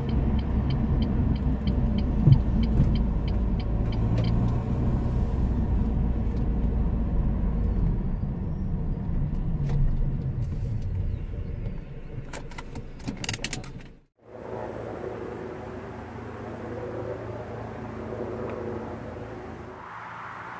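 Car cabin road noise while driving: a steady low rumble, with a fast regular ticking in the first few seconds. About fourteen seconds in it cuts off abruptly and gives way to a quieter, steady outdoor background.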